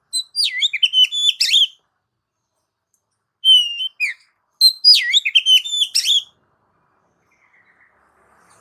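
Oriental magpie-robin (kacer) singing: three bursts of loud, varied whistled notes with quick rising and falling slurs, separated by short pauses.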